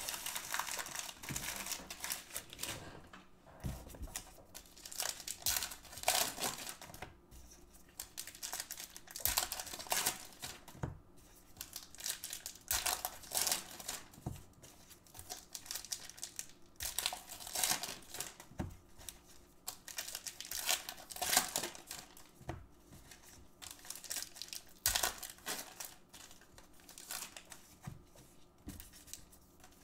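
Baseball card pack wrappers crinkling and tearing open, with the cards handled and flicked through in irregular rustles and light clicks.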